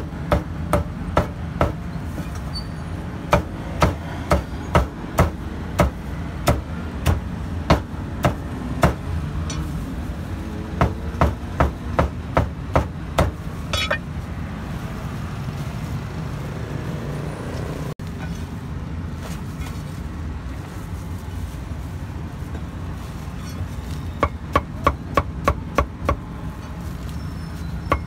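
Cleaver chopping meat on a chopping block: runs of quick, even strokes, about two a second, with a pause of several seconds in the middle, over a steady background hum.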